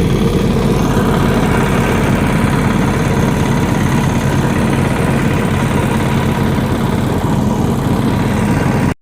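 Engine of construction machinery running steadily at a constant speed. The sound stops abruptly at the very end.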